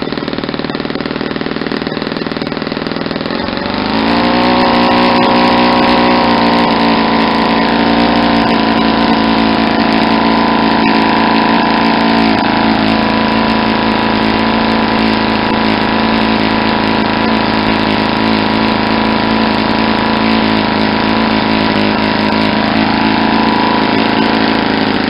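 Rebuilt Saito 50 four-stroke glow model engine running on a test stand, spinning an 11x7 propeller. It is set very rich for running in a new piston ring and has a rich, blubbering note. About four seconds in its speed and loudness rise a step, then it runs steadily.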